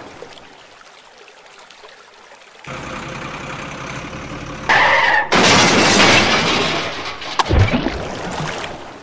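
A toy tipper truck's engine sound running steadily from about three seconds in, with a brief high tone about five seconds in. Then a loud rushing noise for about two seconds, ending in a heavy splash as the plastic truck plunges into the water.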